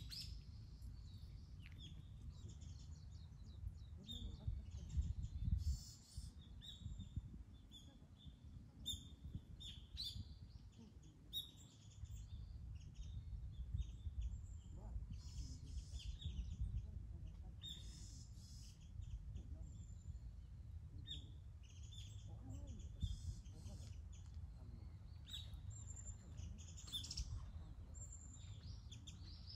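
Small birds chirping on and off, short high calls scattered throughout, over a steady low rumble.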